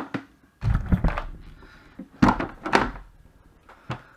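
Handling noise from a cardboard box and a plastic-cased ultrasound therapy machine being moved on a workbench, with several dull thunks as they are shifted and set down.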